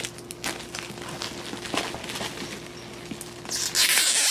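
Cellophane shrink wrap being worked loose and peeled off a cardboard game box: scattered small crackles and taps, then a loud burst of crinkling plastic near the end as the wrap comes away.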